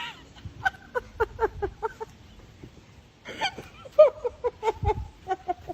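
A dog whining in a run of short, high-pitched yips, several a second. They stop for about a second in the middle, then start again.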